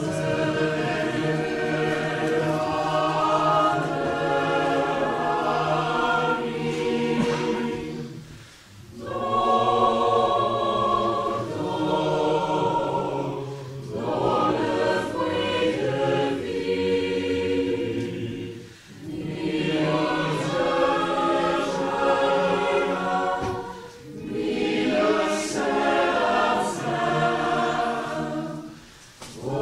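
Mixed choir of men and women singing together, in phrases of about five seconds with short breaks between them.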